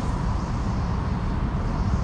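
Steady low outdoor rumble with no distinct event.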